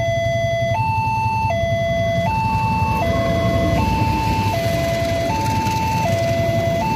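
Newly installed electronic level-crossing alarm sounding through its pole-mounted horn loudspeaker: a two-tone hi-lo signal that switches between a high note and a lower note about every three-quarters of a second, warning that a train is crossing. From about three seconds in, the sound of a passenger train running over the crossing joins it underneath.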